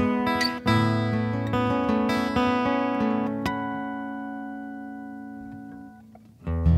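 Acoustic-electric guitar fingerpicked with a thumb pick: a few picked notes, then a chord left to ring and fade slowly for several seconds. Fuller music comes back in loudly near the end.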